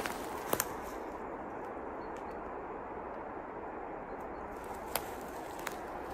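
A steady, low rushing roar, like a locomotive racing along, with a few sharp snaps, one pair about half a second in and two more near the end.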